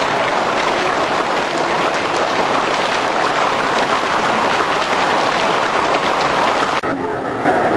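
Studio audience applauding, a dense even clatter of clapping. Near the end the sound turns abruptly duller.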